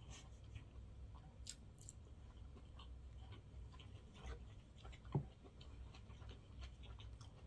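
Quiet eating: faint chewing and mouth sounds with scattered small clicks over a low steady hum, and one short, louder knock about five seconds in.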